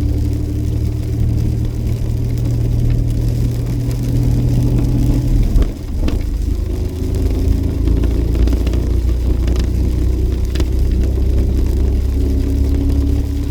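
Jeep's engine and road noise while driving: a steady low hum that drops briefly about halfway through, then picks up again.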